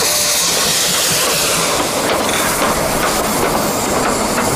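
Steam locomotive venting steam from its cylinders, a loud steady hiss of escaping steam.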